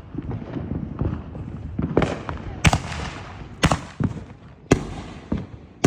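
Fireworks bursting, about five sharp bangs roughly a second apart starting about two seconds in, over a low rumbling background.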